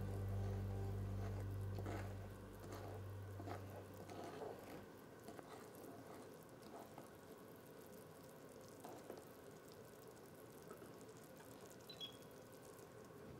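Melting butter, honey and brown sugar softly bubbling and crackling in a small enamelled cast-iron pot, with a wooden spoon stirring and scraping through it. Small scattered pops and ticks throughout, while a held low musical note fades out over the first few seconds.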